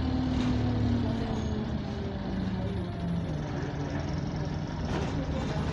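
Single-decker bus's diesel engine heard from inside the passenger saloon, its pitch falling over the first few seconds as the revs drop, then holding level. The bus is said to have a burst turbo.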